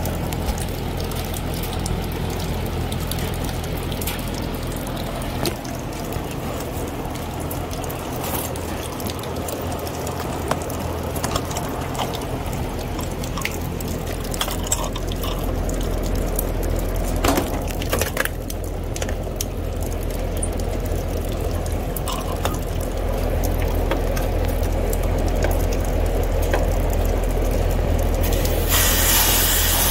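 Outdoor AC condenser unit running, its fan on and the compressor not starting, a steady low hum under a continuous wet patter of water. The technician hopes the fault is only a failed capacitor. A loud spraying hiss starts near the end.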